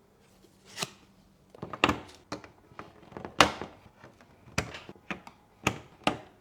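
Computer parts being handled and fitted: a string of irregular knocks and clicks, the loudest about three and a half seconds in.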